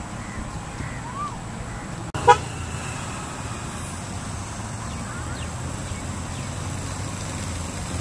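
Steady low rumble of road traffic, with one short, loud horn toot about two seconds in and a few faint bird chirps.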